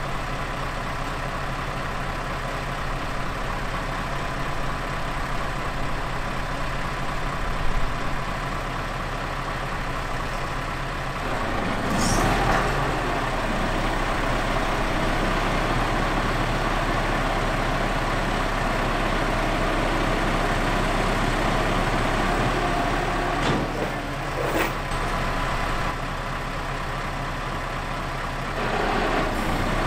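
Scania R650's 16-litre V8 diesel idling steadily, then from about twelve seconds in running louder as the Copma 1150 loader crane's boom is worked. A few sharp knocks sound at about twelve seconds and twice more near the end.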